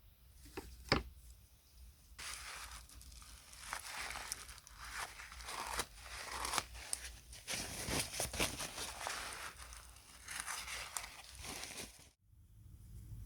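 Irregular scraping and rustling strokes from hand work on an object, with a couple of sharp clicks about a second in; the sound cuts off suddenly near the end.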